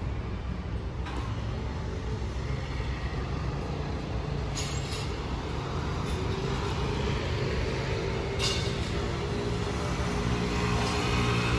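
City street traffic: a steady low rumble, with a vehicle engine running close by that grows louder over the second half, and a couple of brief hisses.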